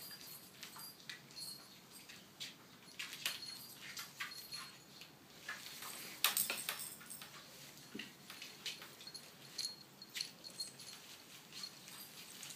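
Vizsla puppies at three and a half weeks playing: scattered clicks and scrapes of small claws on a tile floor and against a plastic toy, busiest about six seconds in.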